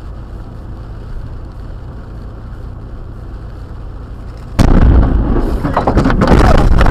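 A steady low rumble of storm noise, then about two-thirds of the way in a close lightning strike: a sudden, very loud thunderclap crack that rolls on loudly.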